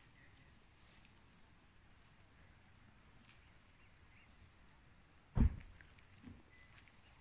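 Quiet outdoor ambience with faint, short high-pitched chirps. A single dull thump comes about five and a half seconds in, followed by a softer one.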